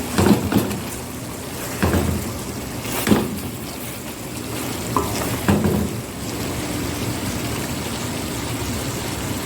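Food sizzling in a hot pan, with a few short clatters of a utensil stirring during the first half, then an even, steady sizzle.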